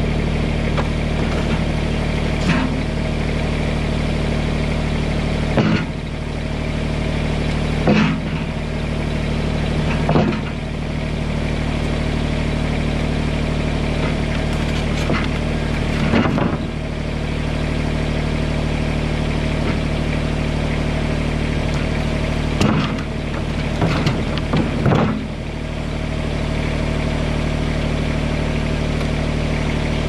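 Kubota BX24 compact tractor's diesel engine idling steadily, with several sharp wooden knocks and clatters as sawmill slabs are pulled off a trailer.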